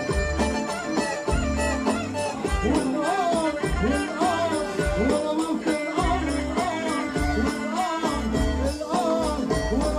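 Egyptian folk music: a wavering, ornamented melody on the rababa over keyboard, with heavy bass notes and a steady percussion beat.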